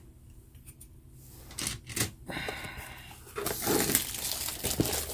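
Cellophane wrapper being torn and peeled off a cardboard model kit box: a couple of brief rustles, then continuous crinkling from about three and a half seconds in.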